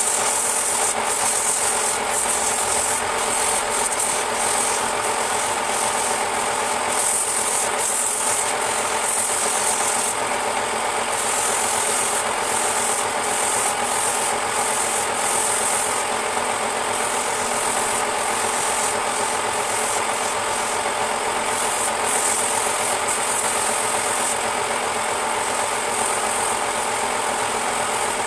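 Wood lathe running with a steady mechanical hum and rattle while a hand-held turning tool cuts and scrapes the spinning wooden vase, the high scraping hiss swelling and fading as the tool is pressed on and eased off.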